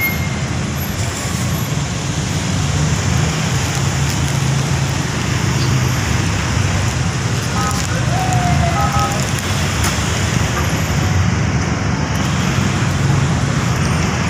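Steady street traffic noise: the continuous hum and rumble of passing road vehicles.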